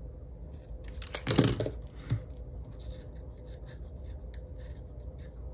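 Sticker paper being peeled and handled at a planner page: a scratchy rustle about a second in, then a string of small light clicks and taps.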